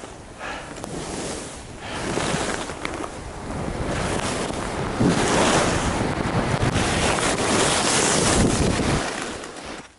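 Wind rushing over the skier's camera microphone and skis hissing and scraping on snow during a fast downhill ski run, swelling and easing with each turn and dying away near the end as the skier slows to a stop.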